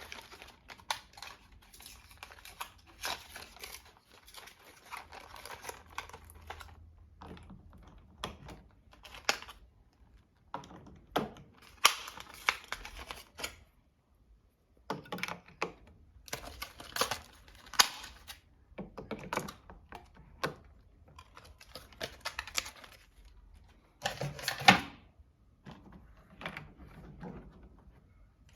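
Irregular clicks, taps and knocks of hard plastic parts being handled and fitted together on a toy washing machine, coming in clusters with brief pauses.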